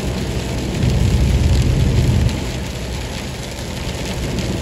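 Rain and road spray hitting a car's windshield on a wet highway, over the steady low rumble of tyres and wind heard inside the cabin. The rumble swells louder for about a second and a half, then eases.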